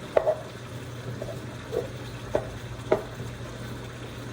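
A spoon stirring hot macaroni and melting Velveeta chunks in a pot: a wet squelching with about five sharp knocks of the spoon against the pot.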